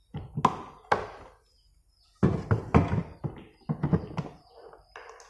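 Knocks and clunks from a plastic rice cooker's lid as a hand handles it and presses it shut: two sharp knocks in the first second, then a quick run of them after a short pause.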